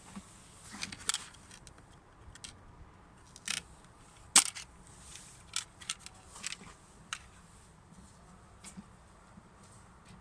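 Scattered sharp clicks and snaps of trim pieces and clips being worked loose in a car's front storage compartment, a dozen or so at uneven intervals, the loudest about four and a half seconds in.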